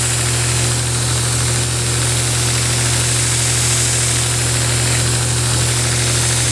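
Grizzly belt grinder running with a steady motor hum while a steel broadhead blade is ground on the abrasive belt, a hissing grind that throws sparks. The hiss grows brighter twice, about two seconds in and near the end, as the blade is drawn across.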